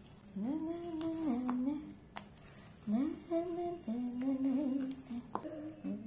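A woman humming a tune in two phrases of held, stepping notes, with a couple of light clicks between them.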